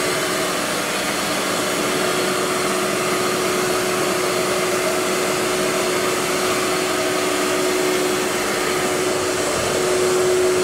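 Woodworking shop machinery around a four-head CNC router running steadily: a constant airy whir with a steady hum note underneath.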